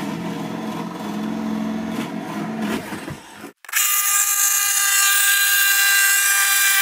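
Handheld power tool running: a lower, steady run for about three and a half seconds, then after a short break a louder, high-pitched steady whine.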